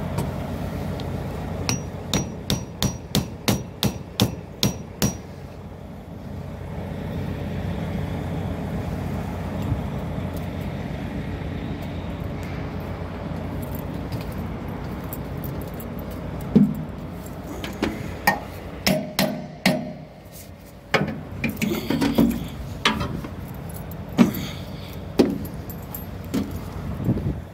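Metallic knocks and clanks on a stainless-steel tanker top and its expanded-metal catwalk. A quick run of ringing taps, about three a second, comes about two seconds in. From about sixteen seconds on there are irregular, louder knocks, all over a steady low hum.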